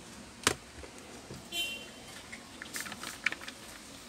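Handling clicks of multimeter probes and leads on a motherboard: one sharp click about half a second in, then a cluster of small light clicks and taps around the three-second mark.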